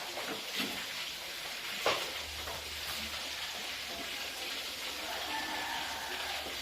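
Food sizzling in a hot pan, a steady hiss with a single knock about two seconds in, after which a low hum joins.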